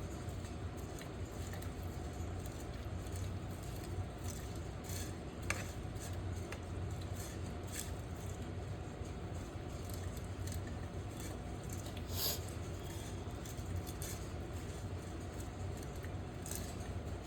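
Scattered light kitchen handling clicks and clatters over a steady low hum, with a sharper click about five seconds in and another about twelve seconds in.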